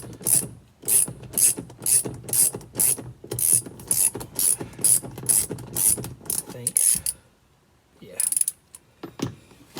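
Hand ratchet wrench driving in a seatbelt retractor mounting bolt, pawl clicking in quick even strokes about two a second. It stops about seven seconds in, then a few more strokes follow near the end.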